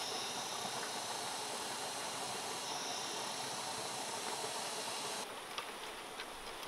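Steady outdoor background hiss with a high, even drone. About five seconds in it drops abruptly to a softer hiss, and a few faint light clicks follow as the bamboo basket and trellis are handled.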